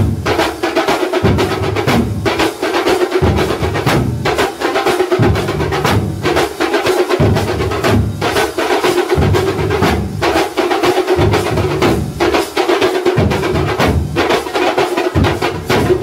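A Kerala thambolam drum troupe playing loudly together: large thambolam drums struck with curved sticks, smaller drums and cymbals, in a fast, dense rhythm with a deep beat that comes and goes about once a second.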